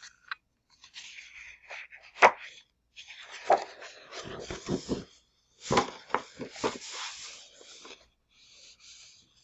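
Sheets of patterned scrapbook paper from a paper pad being handled and turned over: rustling and sliding, with a sharp crisp snap about two seconds in and a cluster of them around six seconds.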